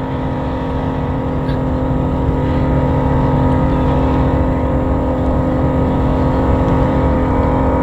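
Boat engine running steadily at an unchanging pitch.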